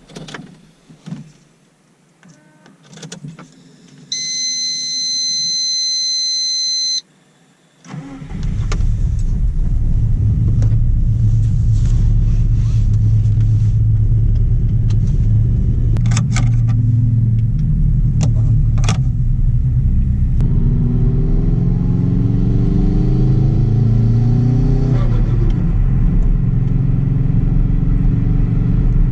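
Subaru EJ207 turbocharged flat-four in an Impreza WRX wagon, with a 3-inch downpipe and exhaust, starting about 8 seconds in and then idling. A steady electronic beep sounds for about three seconds shortly before the start, after a few small clicks. From about 20 seconds in the engine speed rises and falls a little.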